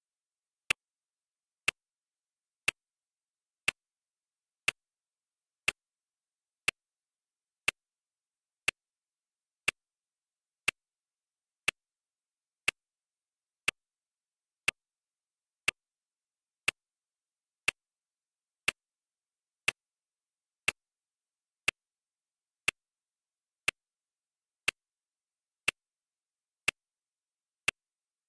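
Clock ticking sound effect: single sharp ticks, one a second, with dead silence between them.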